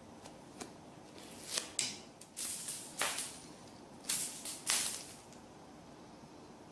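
A cat at play making a run of short scuffing, rustling noises, the loudest between about three and five seconds in.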